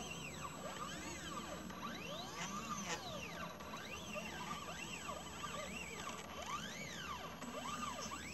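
Stepper motors of a home-built laser CNC engraver driving the head back and forth while it engraves wood. Their whine rises and falls in pitch about once a second as the head speeds up and slows down on each pass, over a steady low hum.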